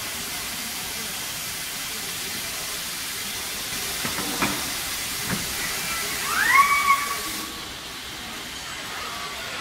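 Steady hiss of a robotic car-body hemming cell, with two short clanks a little past four and five seconds in as the hood panel goes onto the fixture. About six seconds in, a short rising whine of an industrial robot's servo motors speeding up is the loudest sound; the high hiss thins out soon after.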